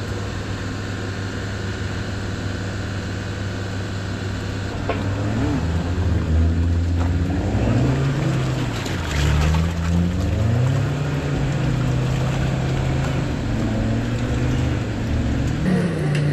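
Land Rover Discovery TD5's five-cylinder turbodiesel engine idling steadily, then revved up and down over and over from about five seconds in as the truck tries to drive out of a deep mud hole.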